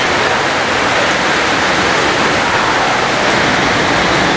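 A steady, loud rushing noise with no distinct knocks, voices or tones in it.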